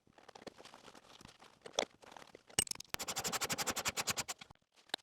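Hands working on car interior parts, with scattered handling clicks and rustles, and a fast, even run of sharp clicks, well over ten a second, lasting nearly two seconds from about two and a half seconds in.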